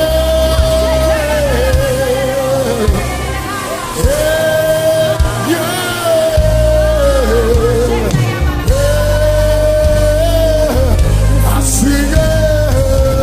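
Live gospel praise music from a praise team: a lead voice sings long held notes that waver at their ends, over a band with a steady bass.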